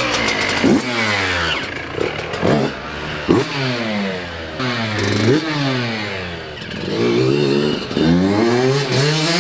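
Yamaha YZ125's single-cylinder two-stroke engine running just after its rebuild, its throttle blipped about six times so the revs jump quickly and then fall back toward idle, as it is checked that it runs properly.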